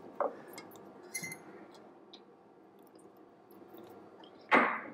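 Light clicks and taps of hands scooping ground ginger, chilli and garlic paste out of a stone mortar and handling a plastic spice jar, with one louder, brief noisy rustle near the end.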